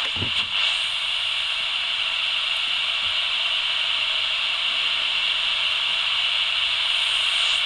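Toy walkie-talkie's speaker giving a steady, even hiss: the open noise of its one-transistor superregenerative receiver with no signal coming in.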